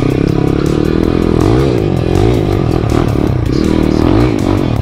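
Jawa KTM motorcycle engine revving up and down several times as the bike is ridden and slid about on snow.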